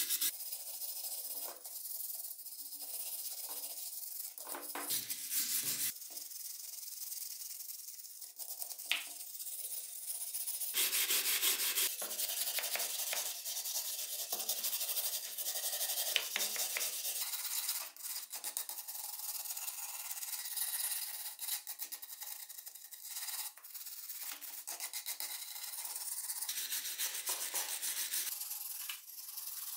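Hand wire brush scrubbing rust and grime off a rusted pneumatic nailer's metal body and magazine: a dense high scratching made of quick back-and-forth strokes.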